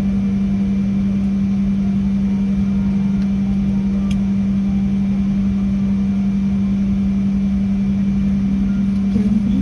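Airliner cabin noise: a steady low hum over an even rumble.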